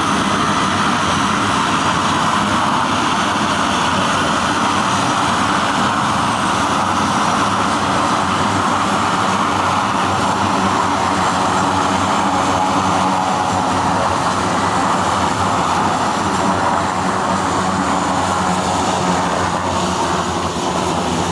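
Aircraft engine running steadily at a constant pitch, with a dense hum and no rise or fall.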